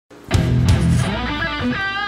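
Music with guitar, starting abruptly about a third of a second in.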